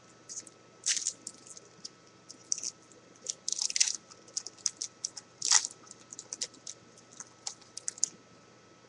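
Wrapper of a football trading-card pack crinkling and tearing as it is opened: a run of irregular sharp crackles, loudest about one, four and five and a half seconds in, stopping about eight seconds in.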